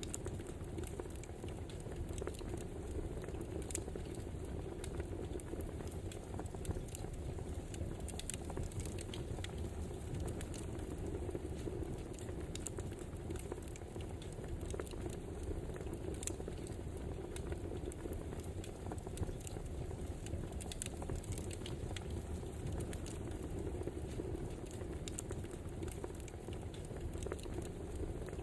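Wood fire burning, a steady rush of flame with frequent small crackles and pops throughout.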